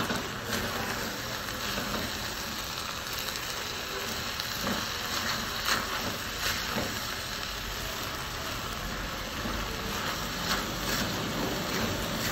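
Silicone spatula stirring and scraping rice in a stainless steel saucepan, with a scattering of light knocks against the pot, over a steady hiss.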